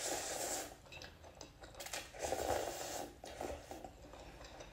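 Slurping instant noodles into the mouth: two slurps about a second long, one at the start and one a little past two seconds in, followed by soft chewing.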